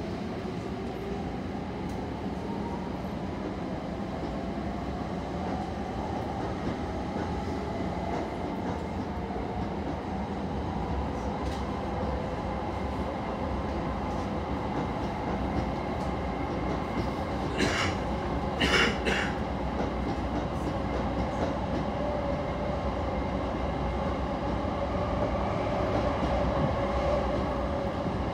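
Inside a Tokyo Metro 15000 series electric commuter train accelerating away from a station: the traction motors' whine rises in pitch over the first several seconds, then holds level over steady running noise as the train reaches speed. A few sharp clacks from the wheels crossing rail joints come about two-thirds of the way in.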